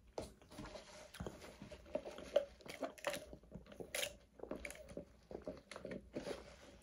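A person chewing and biting food close to the microphone: faint, irregular soft crunches and clicks.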